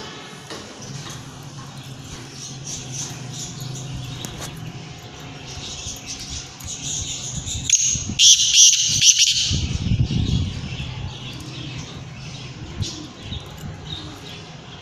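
White-plumaged black francolin calling, with one loud call about eight seconds in lasting a second and a half, and fainter chirping around it.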